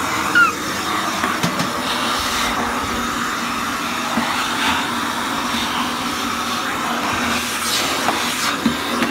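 Vacuum cleaner running steadily, a rushing hiss with a steady hum and whine, while it sucks up a daddy long legs spider.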